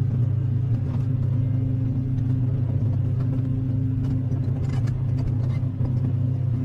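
Excavator's diesel engine running at a steady speed, a constant low hum.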